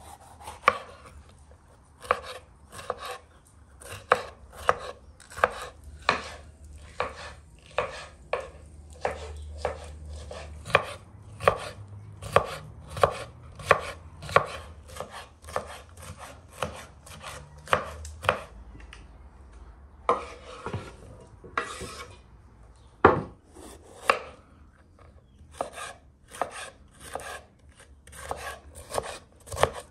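Kitchen knife chopping bell peppers on a wooden cutting board: a steady run of sharp knocks, about two a second, with a short pause past the middle before the chopping starts again.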